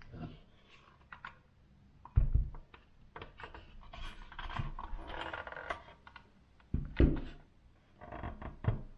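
Handling noise of a metal hi-fi amplifier chassis being turned over by hand: scattered clicks and rustling, with two dull thumps, about two seconds in and about seven seconds in, as the heavy case knocks against the table.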